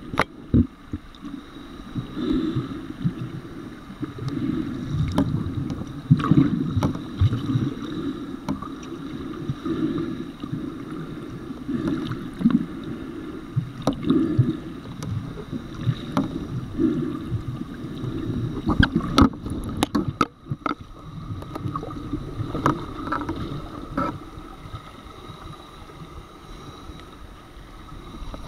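Underwater recording: muffled, uneven rumbling and swishing of water moving around the camera as the swimmer moves, coming in surges every second or two, with scattered sharp clicks.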